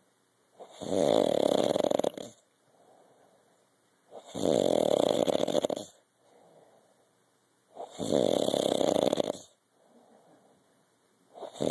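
A man snoring in his sleep: four loud snores, each about a second and a half long and coming about every three and a half seconds, with faint breaths between them.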